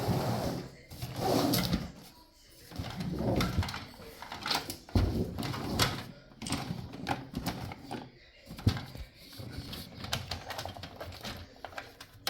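Irregular clicks, knocks and rattles from the parts of a desktop PC case being handled as its internal cage is worked loose and taken out.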